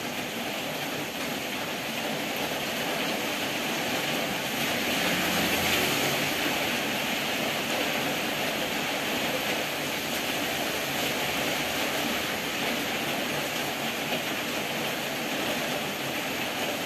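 Steady rain, an even hiss that swells slightly about five seconds in.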